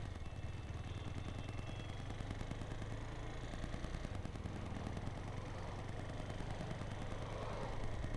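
Motorcycle engine idling steadily, a low even hum.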